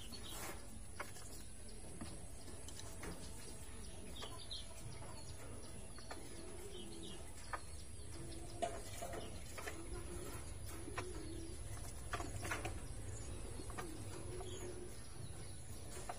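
A bird calling in the background: a run of low, wavering notes repeated about once a second from about six seconds in. A few brief high chirps and scattered light clicks come over a faint low rumble.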